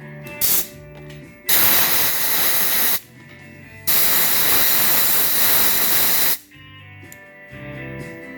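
Background guitar music broken by a brief hiss, then two long, loud hissing sprays of about one and a half and two and a half seconds.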